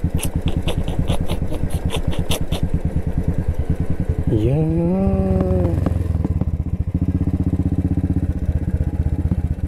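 Royal Enfield Bullet's single-cylinder engine running at low speed with a fast, even beat. A quick series of clicks runs for the first couple of seconds, and a short pitched sound rises and levels off near the middle.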